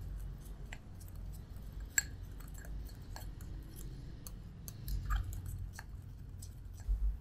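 Small metal spoon stirring a thick cocoa-and-coffee paste in a small glass bowl: irregular light clicks and scrapes of the spoon against the glass.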